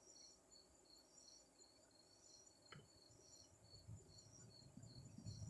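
Near silence with crickets chirping faintly and steadily in the background, and one small click about two and a half seconds in.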